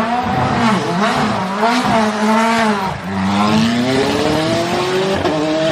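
Race car engine sound revving, its pitch rising and falling, then climbing steadily over the last couple of seconds.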